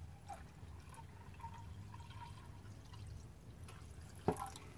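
Water running faintly from a kitchen tap into a cup, with a thin ringing tone as the cup fills. The water stops near the end and a single knock follows.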